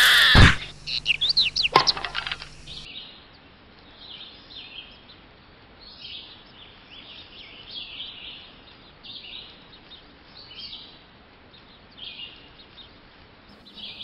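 Birds chirping in short calls every second or two over a quiet outdoor background. Before that, for the first three seconds, comes a loud burst of knocks and squawking cries that cuts off abruptly.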